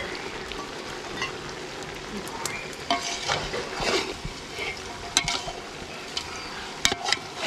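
A metal spoon stirring chicken curry in a metal pot over a wood fire, clinking against the pot a few times, with the curry sizzling underneath.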